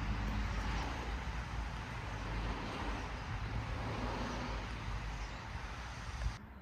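Steady running noise of a moving road vehicle: a low engine drone under an even hiss of road noise. It cuts off suddenly near the end.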